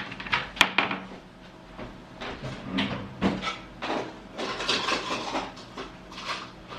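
Handling noise of multimeter test probes and other small objects being picked up and set down on a desk: irregular knocks and clatters, the sharpest a click about half a second in.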